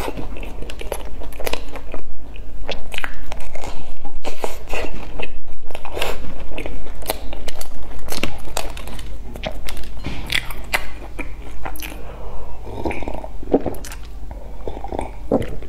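Close-miked biting and chewing of a crumb-coated fried bun: a dense run of crunchy mouth clicks and smacks.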